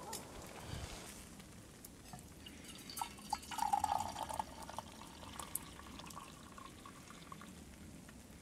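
Tea poured from a cast-iron teapot into an insulated stainless-steel camping mug: a thin stream of liquid splashing as the mug fills, loudest from about three seconds in, then trickling more faintly.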